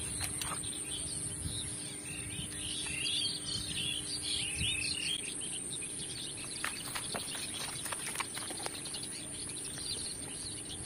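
Outdoor wetland ambience: birds chirping, busiest in the first few seconds, over a steady high-pitched insect drone, with a few faint clicks in the second half.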